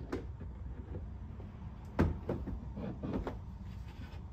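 A rigid floor plate being set down into a vehicle's cargo area: one sharp knock about two seconds in, followed by a few lighter knocks and taps as it is shifted into line with the mounting holes.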